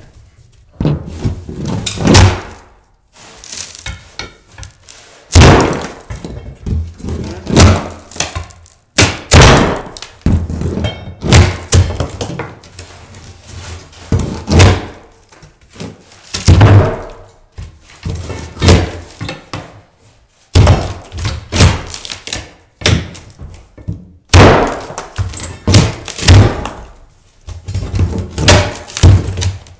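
Crowbar prying particle board underlayment up off a plywood subfloor: repeated, irregular thunks and the cracking of the board as it breaks apart.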